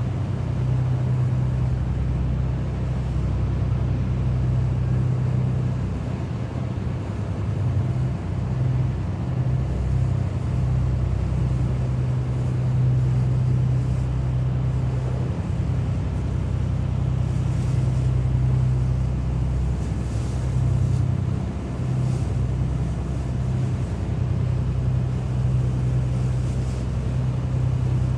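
Lifeboat's engine running with a steady, deep drone that holds even throughout.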